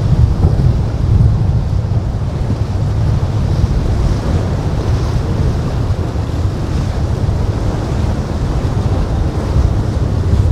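Wind buffeting the microphone as a steady heavy rumble, over the wash of waves and surf.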